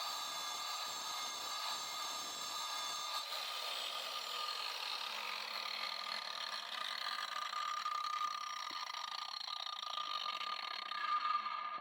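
DeWalt DWE490 9-inch angle grinder with a diamond disc running: a steady high whine over a hiss, which cuts off suddenly at the end.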